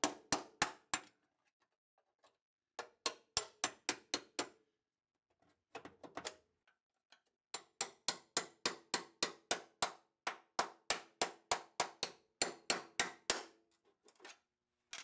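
Hammer driving a chisel between spot-welded steel body panels, in runs of quick blows about three to four a second with short pauses between runs, each blow ringing briefly. The chisel is splitting the panel apart at its drilled-out spot welds.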